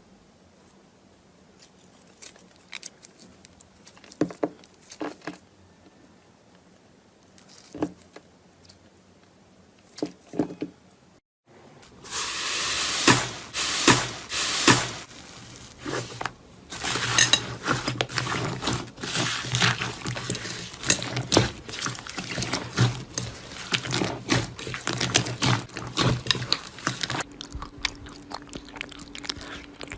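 Slime being worked by hand: a few scattered clicks and squishes at first, then, after a short break, a dense run of crackling pops for most of the rest, easing to quieter clicks near the end.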